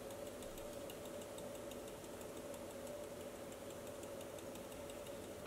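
A faint steady hum with light, fast ticking that fades out about halfway through.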